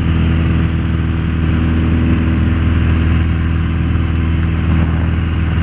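Piper Archer PA-28-181's four-cylinder Lycoming engine and propeller running steadily in cruise, heard from inside the cabin as an even drone.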